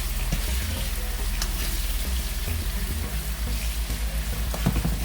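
Chopped onion, scallion, bell pepper and garlic sizzling steadily in hot oil in a pan as they are stirred, with a few clicks of the utensil against the pan.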